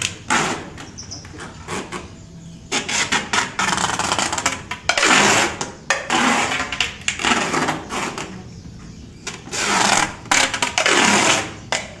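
Packing tape pulled off the roll in repeated long rips, each about a second, while cardboard bird-shipping boxes are taped together.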